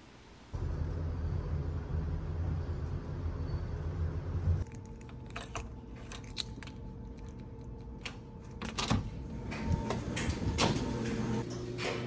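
A steady low rumble for the first few seconds, then keys jangling and a key working a door lock: a run of sharp metallic clicks and clacks.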